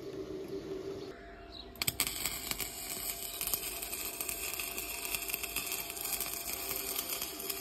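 A couple of sharp clicks about two seconds in, then an electric welding arc crackling steadily.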